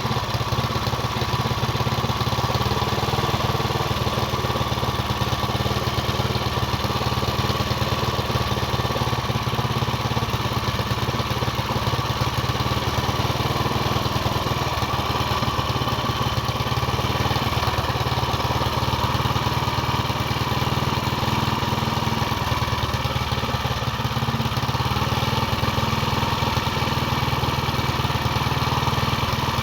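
Small engine idling steadily, with no revving.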